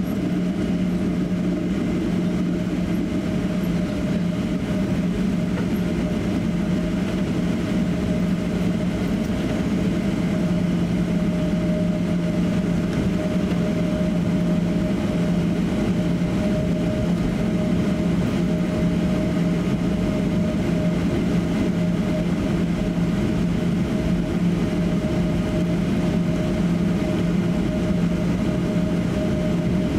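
Steady cabin noise inside a Boeing 737-800 taxiing, its CFM56-7B engines running at low taxi power, with a steady low hum and a fainter higher tone over it.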